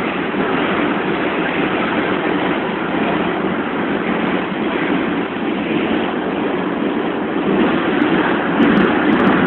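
A 1975–1978 Pullman Standard R46 subway car running through a tunnel, heard from inside the car: a steady, loud noise of wheels on the rails, growing slightly louder near the end.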